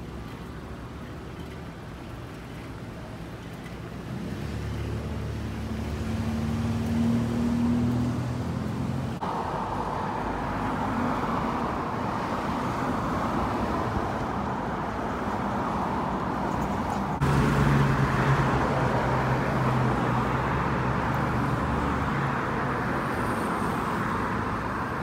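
City street traffic: car engines running and passing by. The sound changes abruptly twice.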